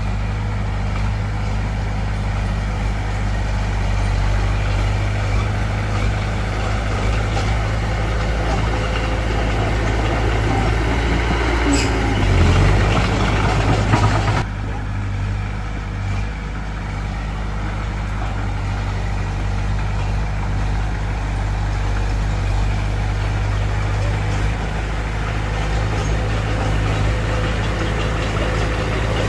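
Diesel engine of heavy earthmoving machinery running with a steady low drone. Its note rises under load for a couple of seconds about halfway through, ends with a short sharp clack, then settles back to a steady run.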